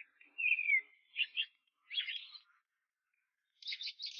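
A small bird calling: a high note sliding downward, then several short bursts of high chirps with gaps between them.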